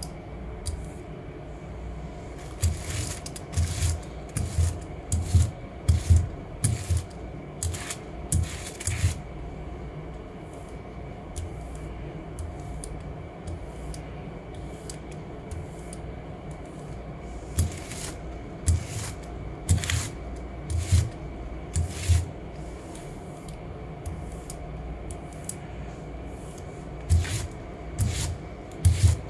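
Hand brayer rolled back and forth over paper on a gel printing plate, giving three bouts of quick knocks and rubbing with quiet gaps between.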